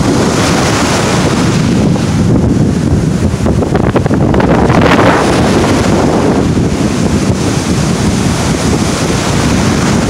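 Strong wind blowing across the microphone over breaking ocean surf, a steady low rumbling wash. The surf swells louder about halfway through.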